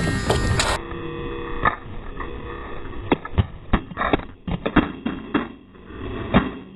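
Irregular sharp knocks and clacks of rattan weapons striking shields and armour in close armoured melee, sparse at first and coming thick in the second half, over a steady hum.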